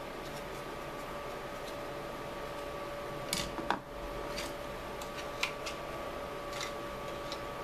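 Light clicks and taps of hard resin model parts being handled and set down on a tabletop, a handful scattered through, the loudest about three and a half seconds in, over a steady faint hiss and hum.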